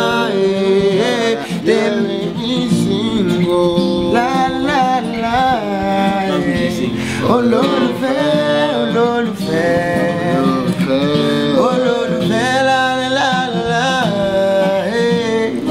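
Male voices singing a wordless, melismatic melody with sliding vocal runs after a held "yeah", over unplugged acoustic guitar accompaniment.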